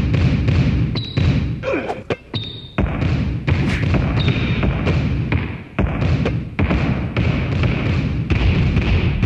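Basketballs bouncing on a hard court in a quick, steady rhythm that works as a beat, with short high squeaks between the thumps. The rhythm breaks off briefly about two seconds in.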